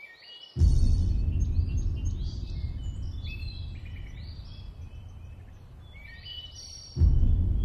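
Birds chirping and singing throughout, with a sudden loud low rumble about half a second in that dies away slowly over several seconds, and a second one near the end.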